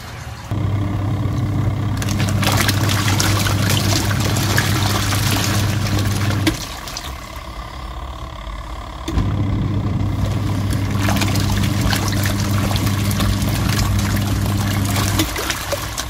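Companion twin tub portable washing machine on its wash cycle: the wash-tub motor hums steadily while the pulsator churns soapy water and clothes with a sloshing rush. The motor stops for about two and a half seconds in the middle, then starts again, and stops shortly before the end.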